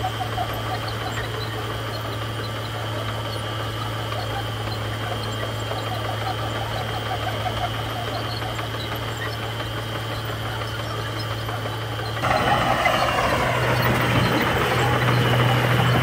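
Crawler bulldozer's diesel engine running at a steady pitch as it pushes gravel, growing louder about three-quarters of the way through.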